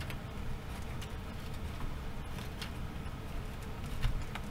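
Light handling sounds: a few soft clicks and taps of fingers working a small cable and connector into a laptop's open chassis, over a low steady hum.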